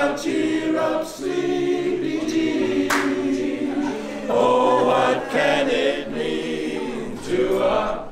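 Male barbershop chorus singing a cappella in close harmony, holding sustained chords across several phrases.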